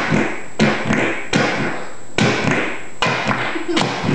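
Fart-like squelches from a boy's back pressing against the floor, skin and floor trapping and releasing air, about six in a row at a steady rhythm.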